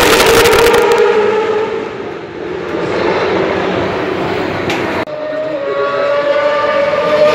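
A pack of racing motorcycles at full speed, their engines screaming with a steady high note that fades as they move away. An abrupt cut about five seconds in brings another pack of bikes heard at a distance, their engine note held steady.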